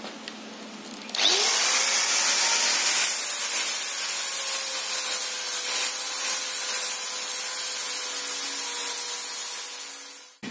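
Angle grinder switching on about a second in and spinning up to a steady high whine, grinding down the welded seam of a steel box fuel tank. It fades out near the end.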